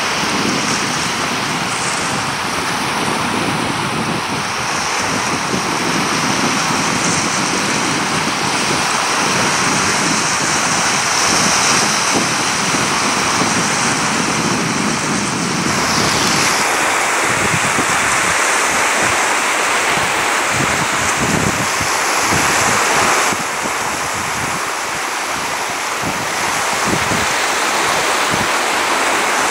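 Sea surf washing onto a beach, with wind rumbling on the microphone. About halfway through the low rumble drops away, leaving a steadier hiss of surf.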